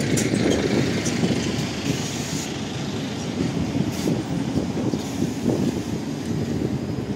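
City street traffic: a large vehicle running past with steady road and running noise that eases slightly as it goes.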